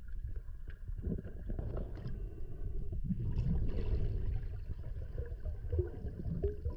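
Muffled underwater water movement heard through an underwater camera: a steady low rumble with irregular gurgles.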